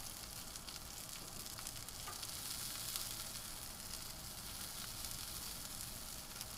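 Charbroiled oysters sizzling on a hot grill: the melted spicy tasso garlic butter bubbling in their shells. It is a steady hiss with fine crackles throughout.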